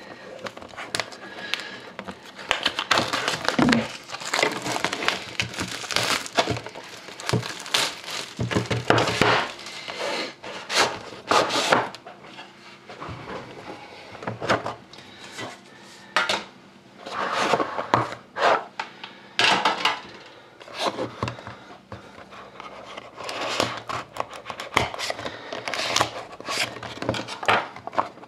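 Plastic shrink-wrap crinkling and tearing as it is stripped from a trading-card box, then the metal tin of a Panini Dominion hockey box and the cardboard box inside it being handled: irregular rustles, scrapes, rubs and light knocks of metal and card.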